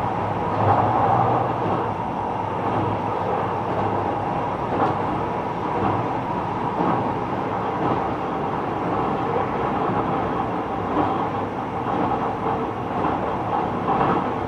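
Kobe Municipal Subway 6000 series train with Hitachi hybrid-SiC inverter running between stations: a steady running noise of wheels on rail, with faint ticks.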